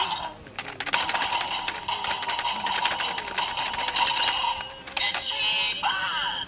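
Rapid plastic clicking of a Sentai Gear being spun in an electronic Zenkaiger sound toy, its ridges tripping the switch inside, over the toy's steady electronic tones. The clicking starts about half a second in and stops near five seconds.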